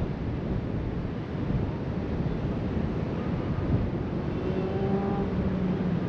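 Wind buffeting the microphone over a steady wash of ocean surf. About four seconds in, a faint droning hum of a distant motor joins it.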